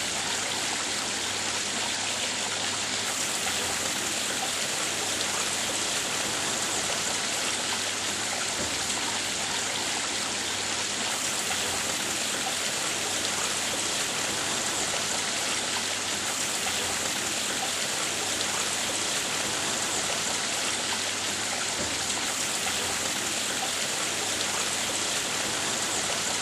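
Water from a garden pond waterfall splashing and trickling, a steady, even rush with no change in level.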